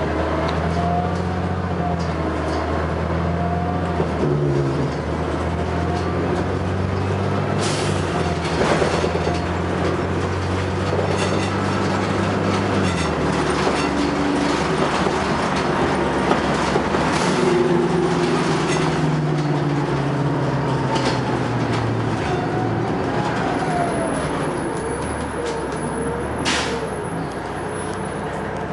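Interior of a 1997 Neoplan AN440 transit bus under way: its CNG engine and drivetrain running, the engine note rising and falling as the bus speeds up and shifts, with knocks and rattles from the body. Near the end a thin high whistle sounds for a few seconds.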